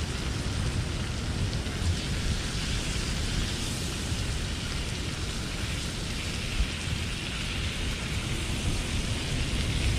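Bacon frying with a steady sizzle in a pan on a portable butane stove, over an uneven low rumble.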